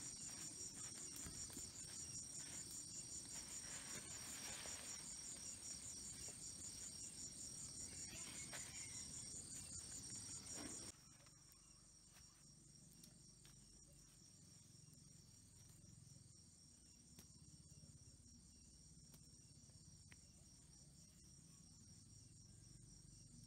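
Crickets chirping at night in a fast, even pulse. About halfway through the chorus drops abruptly and carries on fainter.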